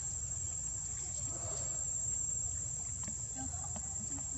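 Insects droning in a steady high-pitched whine, over a constant low rumble.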